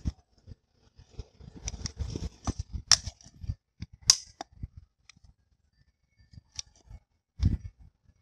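Thin plastic bottle crackling and clicking as it is turned against a fixed knife tip and cut around, with sharp clicks about three and four seconds in. A dull knock near the end.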